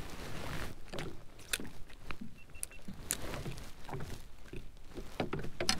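Scattered clicks, knocks and rustles of gear and the landing net being handled in a plastic fishing kayak.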